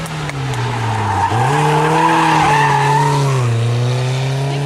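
Small competition car's engine at hard throttle through a slalom, its revs dropping about a second in and again after three and a half seconds, each time picking back up. Tyres squeal through the bend in the middle.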